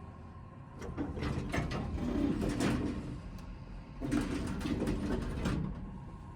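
Toshiba Elemate Cerebrum VF elevator machinery rattling and squeaking in two bouts of about two seconds each, the first starting about a second in and the second about four seconds in, over a low steady hum.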